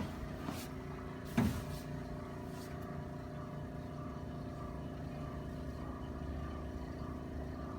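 A steady mechanical hum, like a small electric motor running, with a sharp knock about a second and a half in and a couple of fainter clicks.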